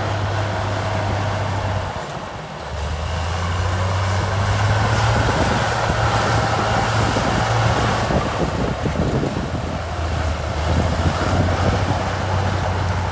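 Heavy diesel engine of an earthmoving machine running steadily. It drops briefly about two seconds in and picks up again, with some clattering noise a little past the middle.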